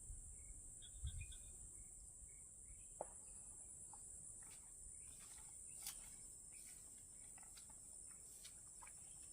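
Faint, steady high-pitched drone of insects, with scattered short clicks and chirps in the middle and a couple of low thumps about a second in.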